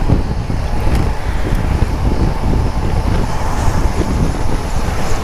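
Wind rumbling steadily on a helmet-mounted camera's microphone while cycling, mixed with the noise of car traffic on the road alongside.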